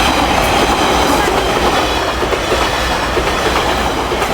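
JR Kyushu 885 series electric limited express train passing close by at speed, its wheels running over the rails with a steady loud rush and rapid clickety-clack.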